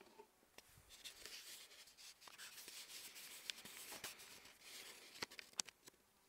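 Faint rubbing and rustling with scattered small clicks, growing clickier near the end: handling noise on a phone voice recording.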